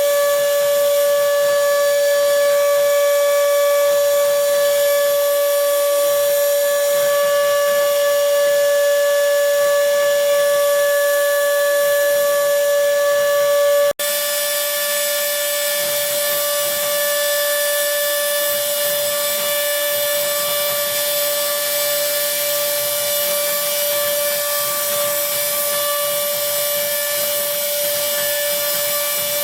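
Spindle motor of a small homemade CNC router running with a steady high whine while milling a printed circuit board. The sound breaks off for an instant about halfway and comes back a little quieter.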